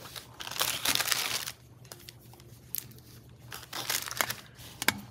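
Clear plastic packaging bag crinkling as hands handle lace trim in it. It comes in two bouts, one starting about half a second in and another around four seconds in, with a couple of sharp ticks near the end.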